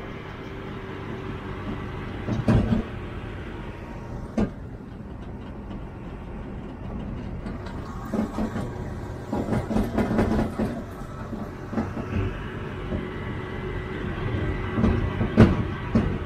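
New Holland farm tractor's diesel engine running steadily while towing a trailer, heard from on the trailer, with repeated metal clanks and rattles from the trailer and hitch as it jolts over the road, the loudest near the end.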